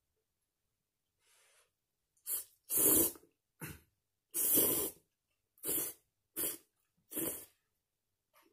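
A person slurping soupless instant noodles from a cup: about seven short, noisy slurps, the two around three and four and a half seconds in longer and louder than the rest.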